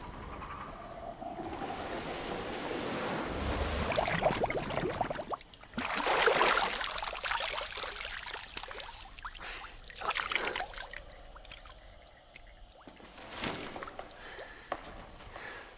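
River water trickling and splashing as a canteen is dipped in and filled, the splashing coming in several stretches.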